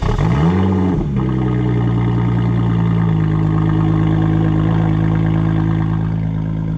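Lotus Evora 400's supercharged V6 starting cold: it catches and flares up in revs for about a second, then settles into a steady fast idle that drops a little about three seconds in.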